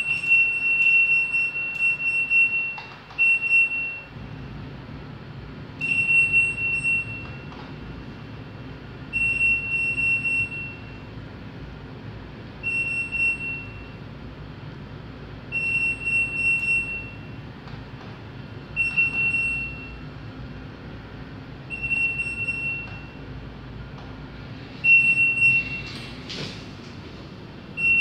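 LG front-loading washing machine beeping: a high electronic alert tone about a second long, repeating roughly every three seconds, over a low steady hum. A brief rustle of handling near the end.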